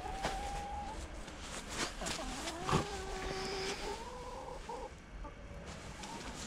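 Domestic hens calling from inside the coop: drawn-out, held calls, one in the first second and a longer one around the middle, with a few sharp clicks in between.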